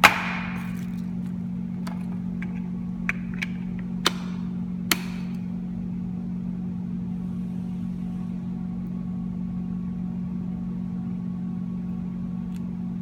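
Steady low hum throughout, with a sharp knock at the start and a few softer clicks over the next five seconds as a handheld gloss meter is handled, taken off its calibration base and tapped.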